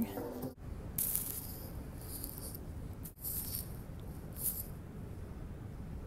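Phone microphone handling noise: short hissy rustles, like clothing brushing the phone, over a low steady rumble. The sound cuts out completely twice, briefly.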